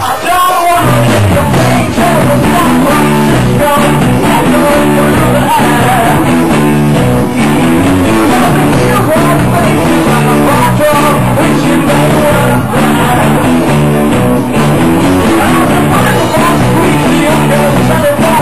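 Live rock band playing loudly, with electric guitars, bass and drums and a lead vocalist singing. The full band comes in hard about a second in.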